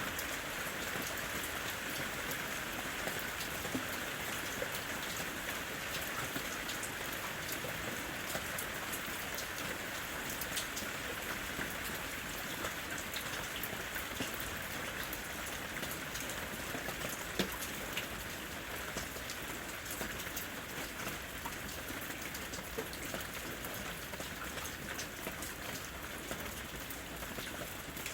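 Steady rain falling, a dense patter of raindrops with sharper single drops here and there, one of them louder about 17 seconds in.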